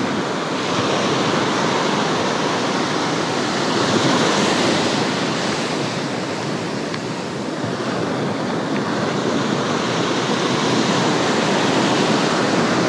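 Small ocean surf breaking and washing up a sandy beach: a steady rush that swells and eases.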